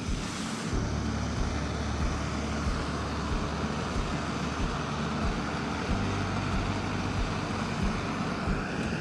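Portable gas camping stove burning, a steady hiss with a low rumble under it.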